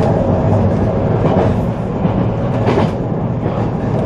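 Local electric train running at speed, heard from inside the passenger car: a steady low rumble of wheels on rail. Twice the wheels clack sharply over rail joints, about a second and a half apart.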